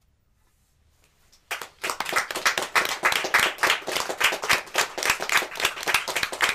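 Audience applause: a short near-silence, then dense clapping starts suddenly about a second and a half in and keeps going.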